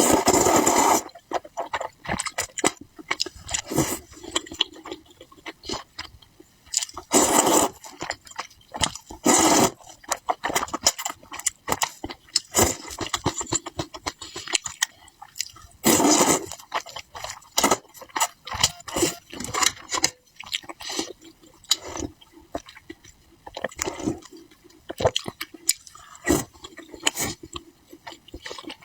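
Close-miked eating sounds: wet chewing and mouth smacking made of many small irregular clicks, with louder bites now and then.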